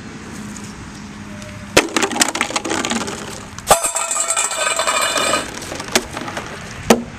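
Red plastic bucket and other objects thrown onto concrete pavement, clattering with several sharp hits and rattling after each.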